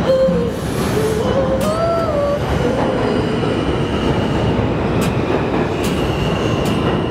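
New York subway train running along the platform, a steady rushing rumble of wheels on rail. A high squealing tone joins about halfway through, and there are three sharp clacks in the last two seconds.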